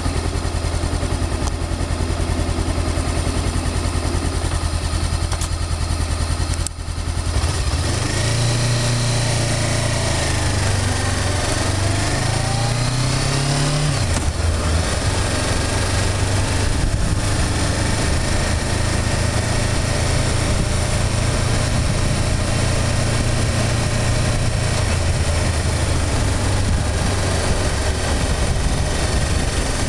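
Motorcycle engine idling, then pulling away about seven seconds in, its pitch rising and dropping through the gears before settling into a steady run.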